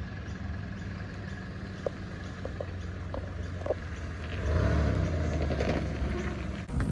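A car engine idling steadily, with a few small clicks; it grows louder about four seconds in, then eases off near the end.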